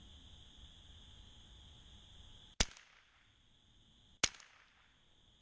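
Two shots from a Sears Ted Williams Model 3T .22 rifle, about a second and a half apart, each a sharp crack with a short tail, over a steady high insect drone.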